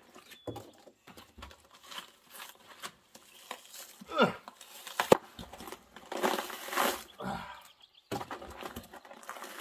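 Plastic bag and packing foam crinkling and tearing as a spray-foamed package is pulled apart by hand, in irregular rustles with a sharp click about five seconds in.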